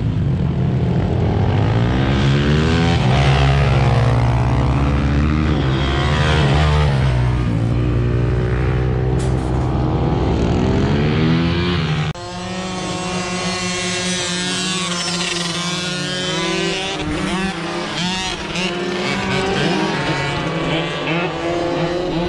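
Several dirt-track racing motorcycles running hard on the track, their engine notes repeatedly climbing and falling as they rev and accelerate. About halfway through the sound cuts abruptly to a quieter mix of overlapping engines further off.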